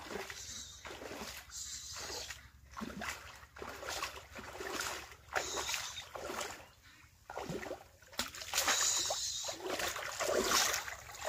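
Shallow pond water splashing and sloshing around wading legs and a hand net being dipped and swept through it, in irregular splashes that get louder and more frequent near the end.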